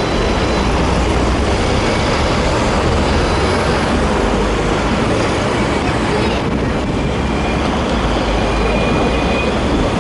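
A seventh-generation Hong Kong double-decker tram with a VVVF drive running along its street track, heard from on board: a steady rumble of wheels on rail and drive, mixed with road traffic.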